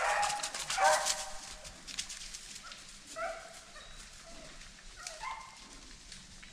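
Hunting hound barking close by: two loud barks at the start, then two fainter ones a few seconds later. Dry brush crackles through the first couple of seconds.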